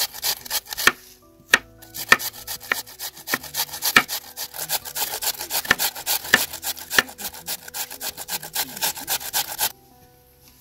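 Raw potato grated by hand on a metal grater: quick rasping strokes, several a second, with a short pause about a second in, stopping abruptly near the end.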